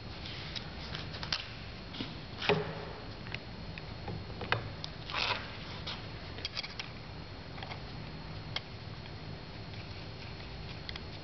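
Scattered light clicks and metallic taps as the cutting-tool holder of a hand-held flange facer is adjusted with small hand tools, the strongest tap about two seconds in, over a low steady hum; the facer is not cutting.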